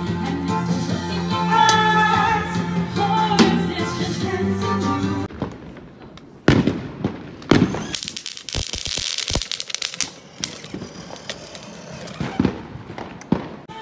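Background music with singing for about five seconds, then fireworks going off: single sharp bangs, a quick string of firecracker pops with a crackle around the middle, and a couple more scattered bangs near the end.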